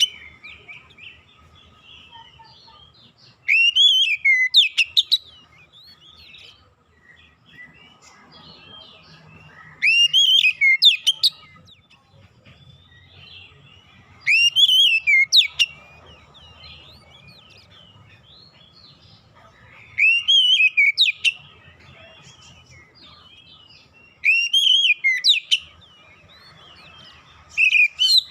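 Oriental magpie-robin (kacer) singing: a loud phrase of rising and falling whistles, repeated about every four to five seconds, six times, with softer twittering between the phrases.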